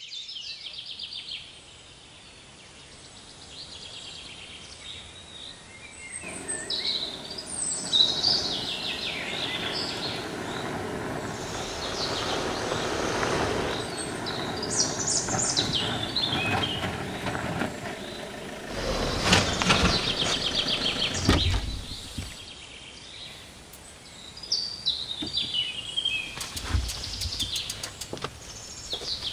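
Birds chirping over outdoor ambience. About six seconds in, a car on a dirt forest road comes up as a steady rumble of tyres and engine that fades near 18 s. It is followed by a few heavy knocks and clatter, and near the end a quick run of clicks as a mountain bike is handled at the car's boot.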